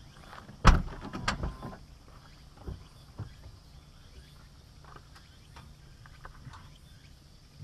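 Honda Legend's V6 exhaust idling low at the tailpipe. About a second in, a burst of loud knocks and rattles stands out over it.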